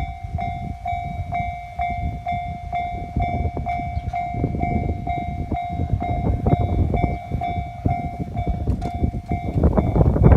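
Japanese level-crossing warning bell ringing, a steady electronic ding-ding about two and a half strikes a second, over the rumble and wheel clatter of a passing train. About nine and a half seconds in, the train noise swells and drowns the bell.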